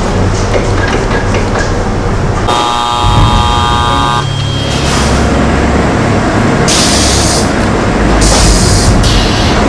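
Running factory machinery hums, then about two and a half seconds in the machine's warning horn gives one steady multi-tone blare lasting under two seconds, a start-up warning. The machine then runs with a low hum, and two short sharp hisses of air come near the end.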